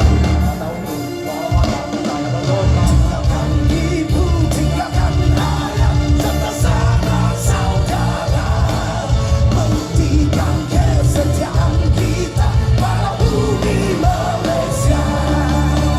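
A rock song with singing over the band, the bass strong and steady.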